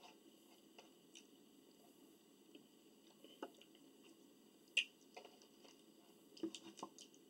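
Quiet, scattered eating noises: mouth smacks and small chewing clicks. The sharpest comes about five seconds in, and a short cluster follows near the end.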